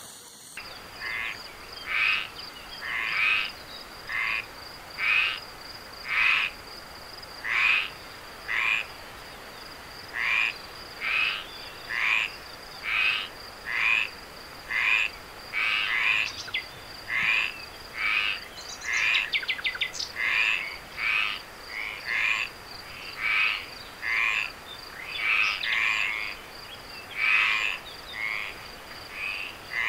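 A frog calling over and over, a short call about once a second, with a steady high-pitched tone running underneath.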